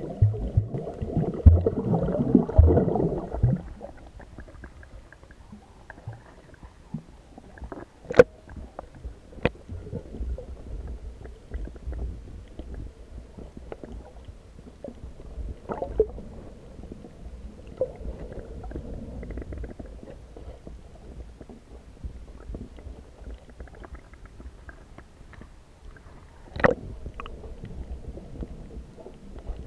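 Muffled underwater sound while snorkeling: low rumbling and gurgling of water, louder for the first few seconds, then a quieter steady murmur broken by a few sharp clicks.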